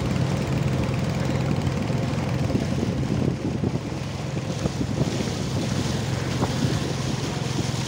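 Small river boat's outboard motor running steadily at cruising speed, a constant low drone, with water rushing past the hull and wind buffeting the microphone.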